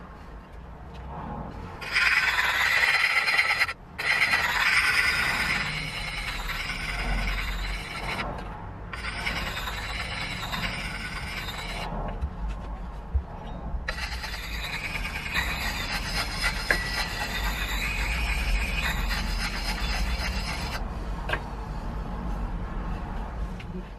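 A round puck sharpening stone being rubbed along the steel edge of a hatchet head: gritty scraping strokes of stone on steel, in stretches broken by a few abrupt short breaks.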